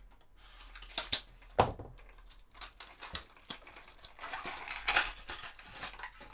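Cardboard lure box and clear plastic blister insert being handled: sharp clicks and knocks as the box is slit open with a folding knife and set down, the loudest about one and a half seconds in. Then rustling and crinkling of the plastic packaging, about four to five and a half seconds in, as the lure is pulled out.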